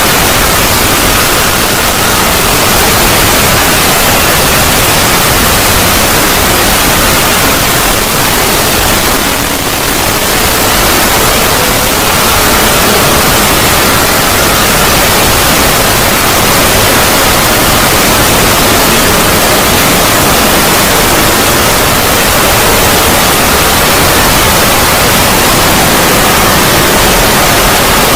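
Loud, steady static-like noise from a synthesized 'void' sound effect, with faint held tones buried in it. It dips slightly about a third of the way through.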